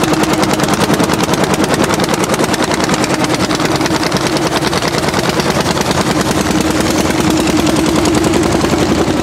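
Orsi Argo hot-bulb tractor's single-cylinder two-stroke engine running loud at full throttle under the load of a plough. Its exhaust beats out a rapid, even string of sharp pops.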